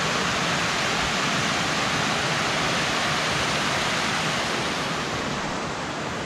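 Creek water rushing over rocks in a small cascade: a steady, fairly loud rush that eases slightly near the end.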